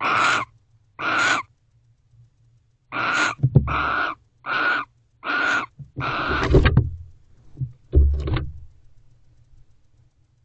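Barn owls giving about eight harsh, hissing screeches in quick succession, the alarm of birds distressed by something outside the nest box. Deep thumps come among the later calls as the owls move about and take off from the wooden box.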